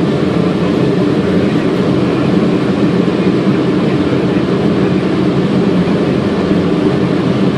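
Steady cockpit noise of a Boeing 777 on final approach, airflow and engine sound blended into an even rumble.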